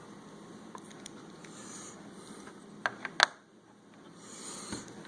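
Faint steady room noise with three quick, sharp handling clicks about three seconds in, the last one the loudest.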